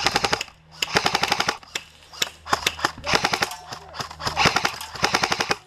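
Airsoft guns firing on full auto in a string of short, rapid bursts of sharp clicking shots, with brief pauses between bursts.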